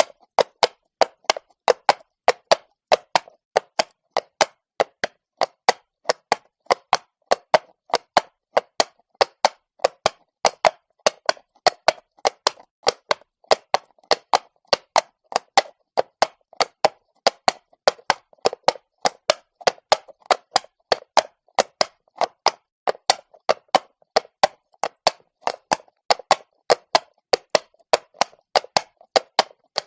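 A horse walking on cobblestones, its hooves clopping on the stone in a steady, even rhythm of about three hoof strikes a second.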